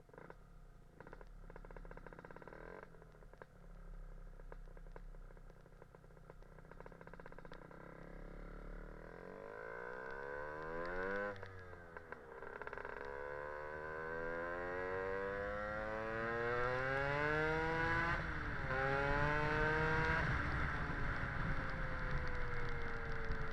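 Lambretta scooter's Casa Performance SSR265 two-stroke engine idling low, then pulling away about nine seconds in. It rises in pitch through the gears, with two gear changes, and eases off slightly near the end.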